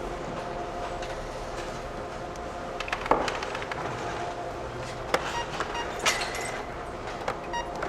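Supermarket checkout ambience: a steady store hum with items knocking on the counter, the loudest knock about three seconds in. Short electronic beeps from the till come near the end.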